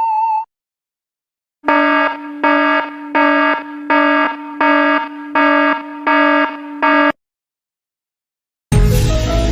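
Electronic alarm buzzer sound effect: a low, harsh buzzing tone pulsing eight times, about one and a half pulses a second, then stopping.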